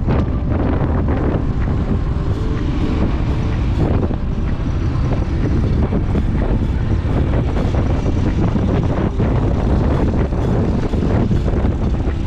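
Wind rushing over the microphone during a ride in a moving vehicle, a loud, steady rumble with the vehicle's engine running underneath.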